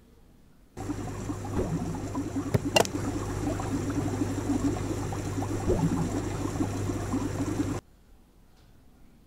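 Aquarium air bubbler gurgling in the tank water over the steady hum of its pump, with a couple of sharp clicks about two and a half seconds in. The sound starts suddenly about a second in and cuts off suddenly near the end.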